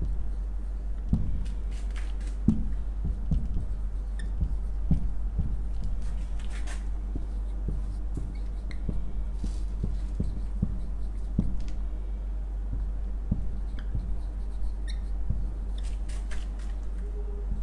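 Marker writing on a whiteboard: irregular soft taps and scratches of the felt tip, with a few short squeaks, over a steady low hum.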